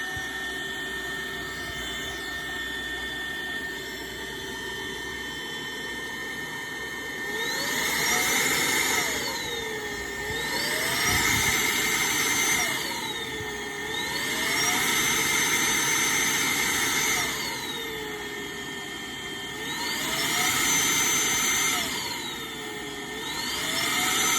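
Vacuum cleaner motor running with a steady whine, held to a camera lens to suck dust out of it. From about seven seconds in, its pitch rises, holds and falls back about five times, getting louder each time it rises.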